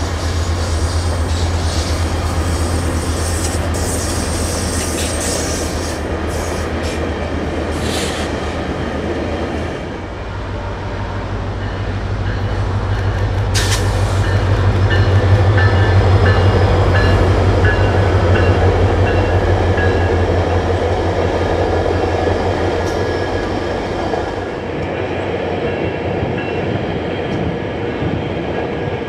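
Metrolink diesel-hauled commuter trains passing in three successive shots. A steady low locomotive engine drone runs under the rumble and clatter of wheels on rail, with brief high wheel squeal. It is loudest in the middle shot, about halfway through.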